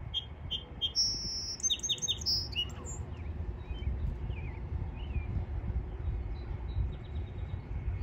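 A songbird singing one phrase in the first three seconds: three short repeated notes, a higher held note, then a quick run of sharp, varied notes. A few fainter chirps follow over a low steady rumble.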